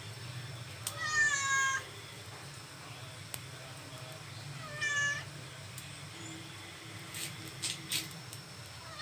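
A cat meowing twice, about a second in and again about five seconds in, each meow short and high-pitched with a slight fall in pitch. A low steady hum runs underneath, and a few short clicks come near the end.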